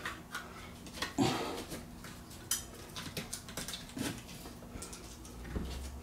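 Scattered clicks, light knocks and rustling as a plastic recessed canister light and its wiring are handled and pushed up into a hole in the ceiling. A firmer knock comes about a second in, and sharp ticks come twice later.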